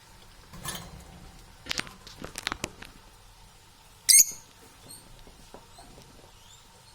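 A parrot gives one short, shrill squawk about four seconds in, the loudest sound here, after a quick run of small clicks and taps about two seconds in.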